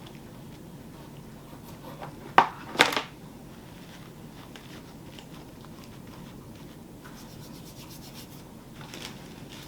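Hand-work noises from repairing a wreath: faint rubbing and scraping throughout, with a sharp click about two and a half seconds in and a short rustling scrape right after it.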